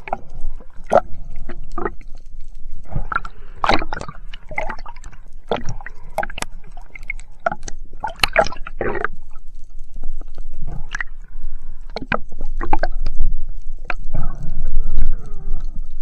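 Underwater sound of a diver's gear being handled: many irregular sharp clicks and knocks over gurgling water movement.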